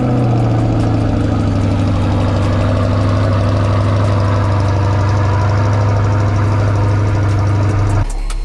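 A motor running at a steady, unchanging speed with a strong low hum, stopping abruptly near the end.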